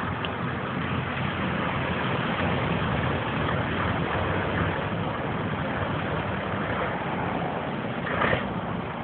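Scammell 6x6 truck's engine running steadily as it drives away along a wet road, with road noise and a brief louder burst near the end.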